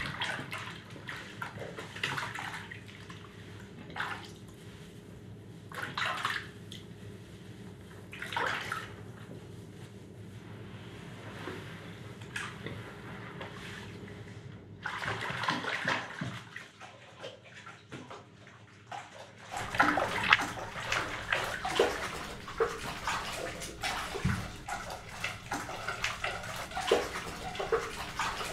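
Water running from a bath tap into a bathtub. It swells every couple of seconds at first, then gets fuller and louder about two-thirds of the way in.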